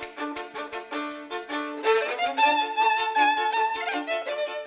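Violins playing together in harmony: quick, short bowed notes for about two seconds, then longer held notes with vibrato.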